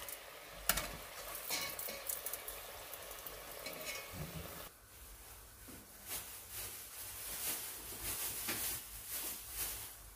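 Samosas deep-frying in hot oil: a steady sizzle with frequent small crackles.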